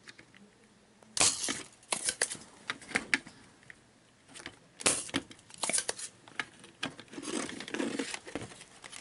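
Spring-loaded desoldering pump (solder sucker) being cocked and fired again and again while the pins of an IC are desoldered from a circuit board: a series of sharp, irregular snaps. Near the end there is a rustle and scrape as the board is handled.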